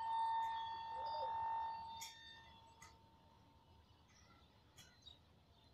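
Train horn sounding one steady high note that stops about two seconds in, followed by a few faint clicks.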